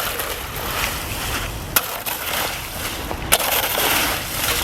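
Tools scraping and digging through wet sand and gravel while silt is cleared from a clogged stream channel, with three sharp clinks of metal striking stone.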